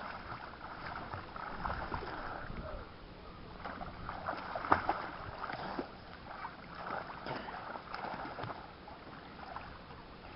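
Water splashing and sloshing from several swimmers kicking and paddling around a small wooden boat, in short irregular bursts, with one louder sudden splash about halfway through.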